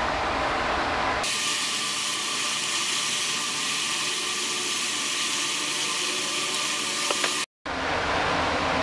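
Steady background hiss with no distinct event. It changes character abruptly about a second in and cuts out briefly near the end. A couple of faint clicks come just before the break.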